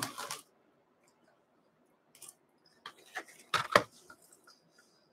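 A brief rustle, then a few light taps and knocks, loudest about three and a half seconds in, as a cardboard 2019-20 O-Pee-Chee Platinum hockey card box is handled and set down on the table.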